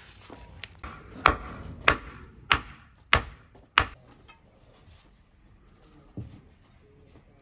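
Five sharp, evenly spaced blows on wood, about one every 0.6 seconds, as a wooden post is struck, then a single lighter knock near the end.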